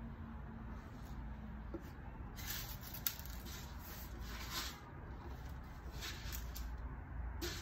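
Rustling and rubbing of curly wig hair being handled, in several short bursts, with one sharp click about three seconds in, over a low steady room hum.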